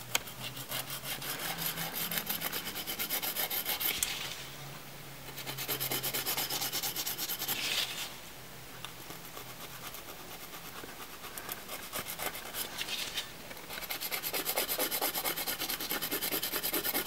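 Hand nail file rasping back and forth across a gel-coated fingernail in quick short strokes, shaping the tip. The filing comes in three louder runs, about the first four seconds, again around six to eight seconds, and from about fourteen seconds on, with lighter strokes in between.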